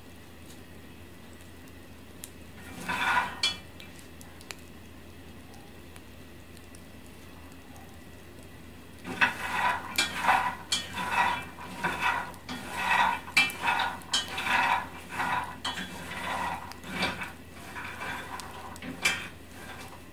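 Peanuts rattling and scraping in a pan as they are stirred while being roasted. One short burst comes about three seconds in, then a run of stirring strokes, about two a second, from about nine seconds until near the end.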